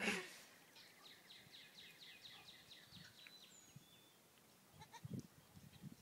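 Faint goat sounds: a few short, low calls from the Nubian doe or her newborn kids about five seconds in. Earlier, a faint run of quick, high chirps, about five a second.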